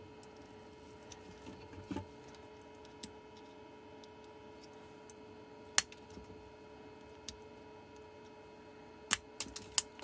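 Scattered small clicks and taps of a lithium-ion cell pack and its nickel strip tabs being handled and worked by hand, the sharpest just before six seconds in and a quick cluster of clicks near the end, over a faint steady electrical hum.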